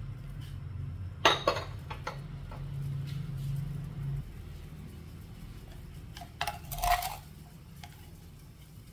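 Metal ladle clinking against a large aluminium cooking pot: a sharp clink about a second in followed by a few lighter knocks, then another short cluster of clinks about two-thirds of the way through. A low steady hum sits underneath and stops about four seconds in.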